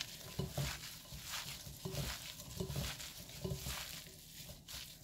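Gloved hand mixing shredded dried pollock and bellflower root into a sticky red pepper-paste dressing in a glass bowl: soft, irregular wet squelching and rustling.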